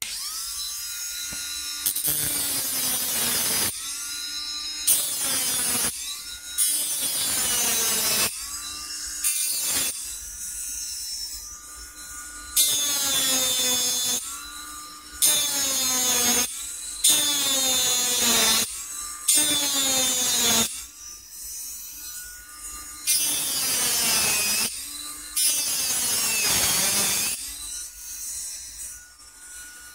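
Rotary engraving handpiece with a small bur cutting into a titanium knife handle scale, texturing it like broken stone. It runs in many short passes: a high grinding whine whose pitch dips and recovers with each pass, broken by brief pauses.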